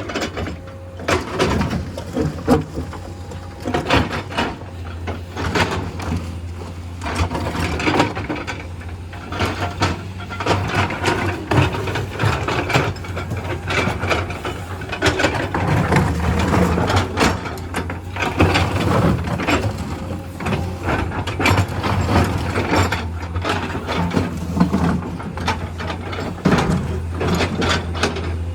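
Hydraulic excavator at work: its diesel engine running steadily under load, with a constant irregular clatter of knocks and clanks from the digging.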